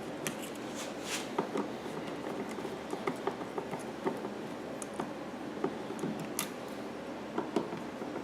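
Phillips screwdriver backing out the screws that hold the front panel on a Yamaha EF2000iS generator: irregular small clicks and scrapes of metal on screw heads and panel.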